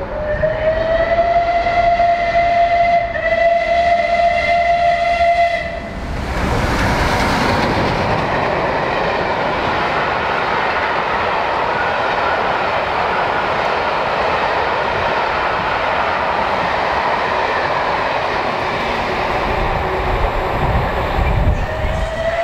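Bulleid Merchant Navy class Pacific 35028 Clan Line sounding its steam whistle in one long blast, briefly broken about three seconds in. About six seconds in the locomotive runs past at speed, followed by a steady noise of its Pullman coaches' wheels on the rails. The whistle starts again at the very end.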